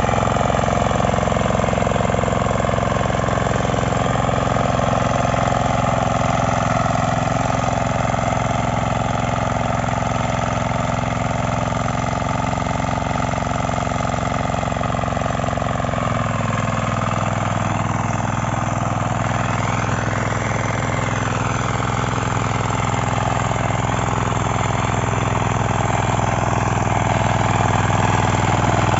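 9 HP power weeder engine running steadily while the machine ploughs, its note shifting to a different speed about halfway through.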